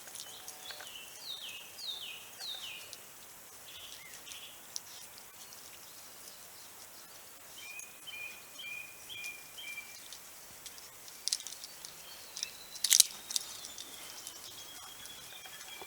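Wild birds calling outdoors: a run of about five quick descending notes near the start, then a string of short, evenly spaced notes around the middle. A few sharp clicks or knocks come near the end.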